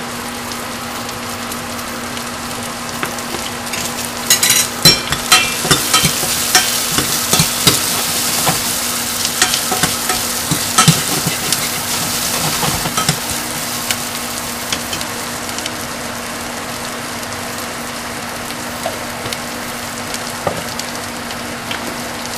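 Onion, green chili and fresh ginger sizzling in hot ghee in a stainless steel saucepan. From about four seconds in to about thirteen seconds, a metal spoon scrapes and clinks against the pan as they are stirred. A steady low hum runs underneath.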